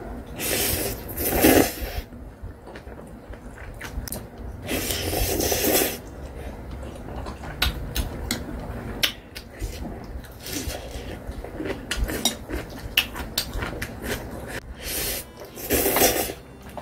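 A person slurping instant ramen noodles three times: about half a second in, around five seconds in, and near the end. In between come short clicks and scrapes of metal chopsticks against a glass bowl.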